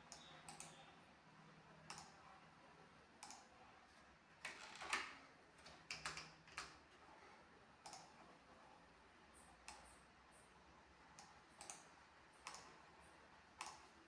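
Near silence with faint, irregular clicks, about a dozen, some in quick clusters, the loudest a few seconds in.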